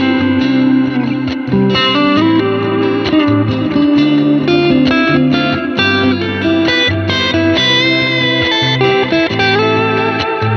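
Fender American Vintage II '61 Stratocaster electric guitar with single-coil pickups played through an amp: a steady run of picked notes and chords over lower held notes.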